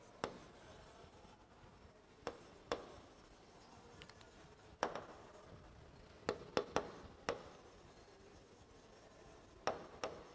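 Faint writing on a board: scattered sharp taps and light scratching as words are written stroke by stroke, with small clusters of taps near the middle and near the end.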